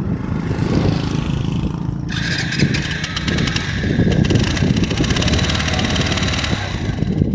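Motorcycle engine running. About two seconds in, a higher buzzing sound joins in and continues until shortly before the end.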